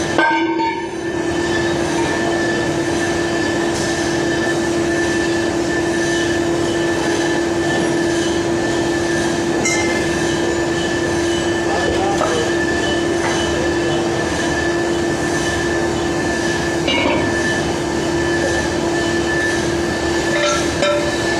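A machine tool running steadily while machining metal: a constant hum with a steady whine over dense grinding and scraping noise, and occasional small clicks.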